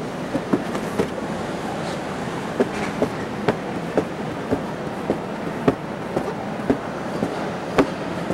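Footsteps on a spiral staircase, short knocks about two a second, over a steady background rumble.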